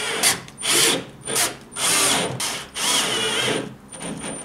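Bosch Professional cordless drill-driver driving screws, running in a series of short bursts that stop and start several times as the screws are sunk through the flange of a plastic pipe bush into a wooden mounting plate.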